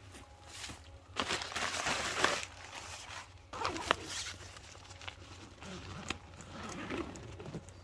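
Nylon tent fly rustling and crinkling in irregular bursts as the vestibule flap is handled and pulled closed, with scuffs in dry leaf litter.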